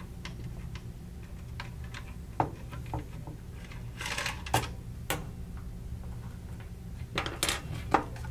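Light clicking and ticking of a hex driver turning out the sling stud screw from an SRS-A2 rifle chassis. Several sharper knocks follow as small parts and then the chassis are handled on a wooden bench, clustered near the end.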